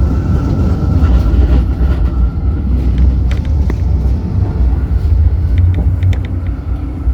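City tram running along its line: a steady low rumble of wheels on rails, with a few short sharp clicks about three seconds in and again near six seconds.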